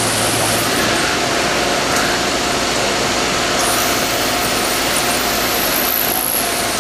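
CNC vertical machining center milling a cast metal housing with an end mill under a coolant jet: a steady hiss of coolant spray and cutting noise over the spindle's running hum.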